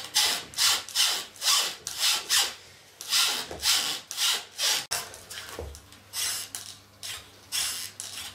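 Longboard truck being rocked from side to side, the hanger rubbing in its pivot cup and bushings with a rasping squeak at each tilt, about two strokes a second with a short pause about three seconds in.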